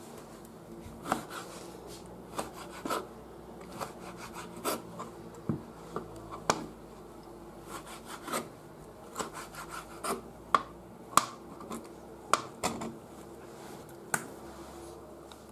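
Kitchen knife cutting orange slices into pieces on a plastic cutting board: irregular sharp knocks of the blade hitting the board, with scraping between the cuts.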